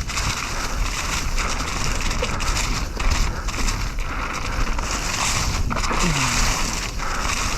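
Mountain bike rolling fast over a dirt trail: tyres crunching on dirt and gravel, with a steady rush of wind on the microphone. A brief falling voice-like sound comes near the end.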